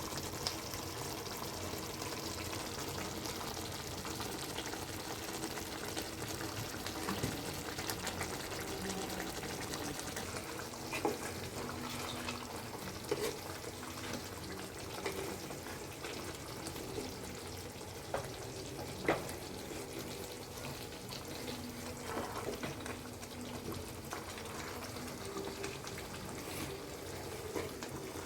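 A pan of quail pepper masala gravy simmering on the stove: a steady bubbling sizzle, with a few light knocks now and then.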